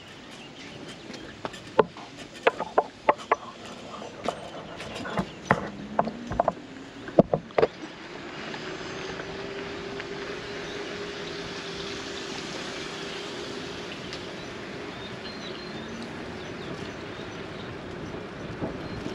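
A run of sharp, irregular clicks and knocks, then a small vehicle engine that speeds up about seven seconds in and runs at a steady pitch with a rushing noise, dropping slightly near the end.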